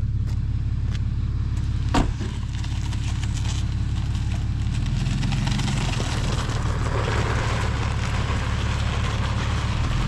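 Rollback tow truck's engine idling with a steady low drone, and a single sharp knock about two seconds in.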